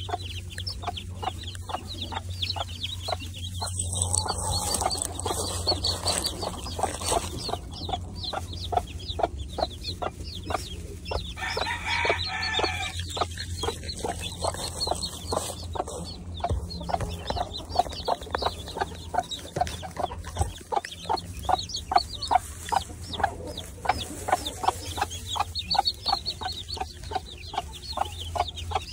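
Mother hen clucking to her chicks in quick, closely repeated clucks, with a longer drawn-out call about twelve seconds in, and the chicks peeping.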